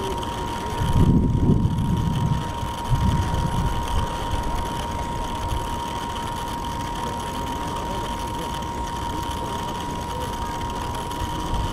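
Radio-controlled model boat running with a steady, unchanging whine. Wind buffets the microphone about one second in and again about three seconds in.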